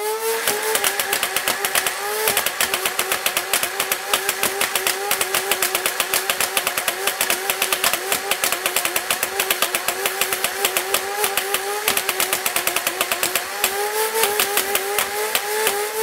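Nerf Rival Nemesis flywheel blaster, run on a 3S LiPo, firing full-auto. The flywheel motors spin up with a rising whine at the start, then hold a wavering whine under a rapid, dense clatter of the pusher and ball feeder as foam balls are fired.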